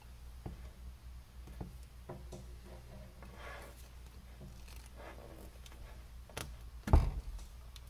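Hand wire strippers working on electrical wire: small clicks and brief scraping as the insulation is cut and pulled off, with a sharp loud click near the end.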